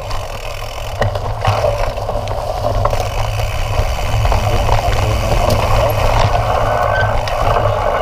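Mountain bike rolling fast over a dirt trail: steady tyre rumble with the bike and its handlebar-mounted camera rattling, and scattered clicks and knocks over bumps.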